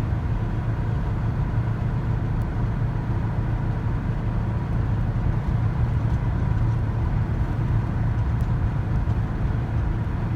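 VW bus driving along at a steady pace: a steady low drone of engine and road noise.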